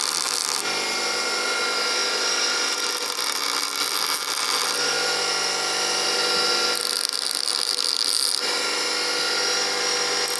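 Grinding wheel running with a steady motor hum while a steel connecting rod is pressed against it in short passes. It gives a grinding hiss that swells and fades, loudest around three to five and seven to eight seconds in. Small amounts of metal are being ground off to bring the rod's weight into balance with the others.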